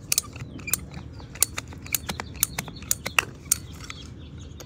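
Hand PVC pipe cutter clicking as its jaws are squeezed through a 3/4-inch PVC pipe: a quick, uneven series of sharp clicks that stops about three and a half seconds in.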